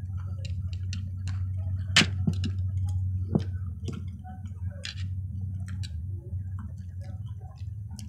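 Wooden chopsticks clicking against each other and tapping candy-coated peanut M&M's on a plate, in scattered irregular clicks, the sharpest about two seconds in. A low steady hum sits underneath.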